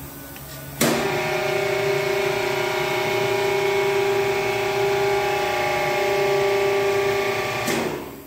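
Repaired 40-horsepower DC motor running at a steady speed during its test run, giving a steady whine of several tones. The sound cuts in suddenly about a second in and stops abruptly near the end.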